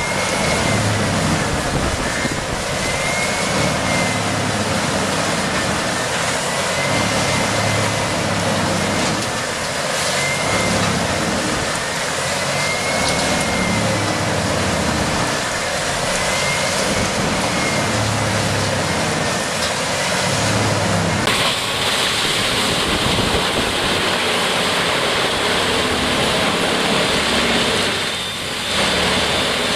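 Large engine-driven wood chipper or shredder running loud and steady. About two-thirds of the way through, the sound switches abruptly to another machine with a brighter hiss.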